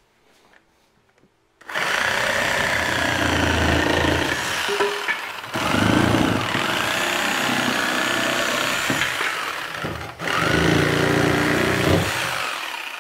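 Corded reciprocating saw cutting through 2x4 framing lumber. It starts about a second and a half in, runs in three passes broken by two short pauses, and stops near the end.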